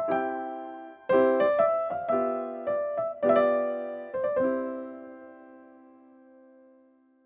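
Background piano music: a run of struck notes and chords. The last chord rings out and fades to silence about six to seven seconds in.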